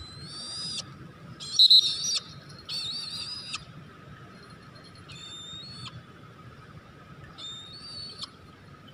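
Five high, wavering whistled calls a second or two apart, the second the loudest, used to recall a brahminy kite to the glove.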